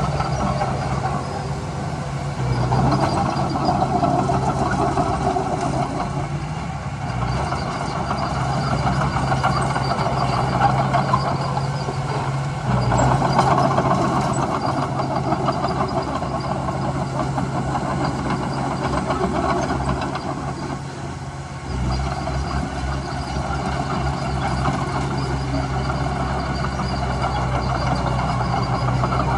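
Diesel engine of heavy earthmoving machinery running steadily under working load, with a rough mechanical clatter over a constant low hum. The engine swells and eases a few times, dips near the two-thirds mark and picks up again.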